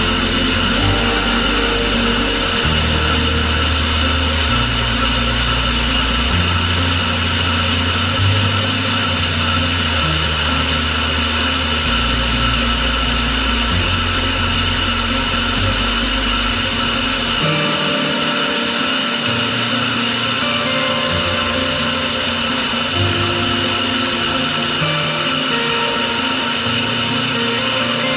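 A small power tool running steadily throughout, with background music carrying a bass line that changes note every second or two.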